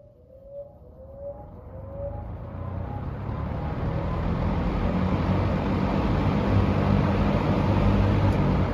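A 1974 TG&Y Golden T 20-inch box fan, made by Champion Cooler with a Daytona motor, starting up from rest: a run of short rising whine-like chirps in the first couple of seconds, then the motor hum and the rush of air building over about five seconds to a steady full-speed whir.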